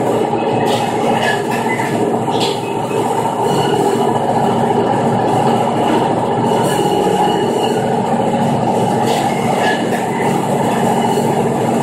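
Kleen Kut meat wet saw, a vertical band saw, running steadily while its blade cuts through beef shoulder clod pushed into it by hand.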